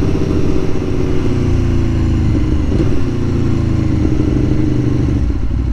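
A 2021 Aprilia Tuono Factory's V4 engine running on the move, its note falling slowly as the revs ease off.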